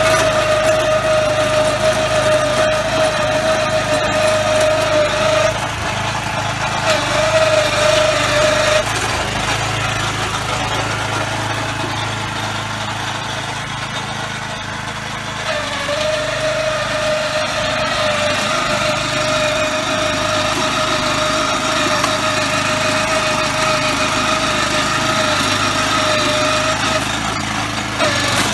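Small petrol engine of a walk-behind lawn corer running steadily as the machine is pushed across the lawn, punching plugs out of the turf. The engine note is fainter for several seconds in the middle, then comes back.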